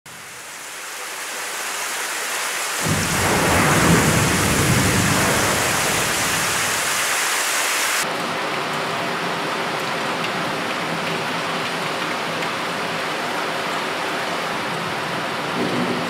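Heavy typhoon rain pouring, with a long, deep rumble of distant thunder rolling in about three seconds in and lasting several seconds. Partway through, the sound changes abruptly to steady heavy rain alone.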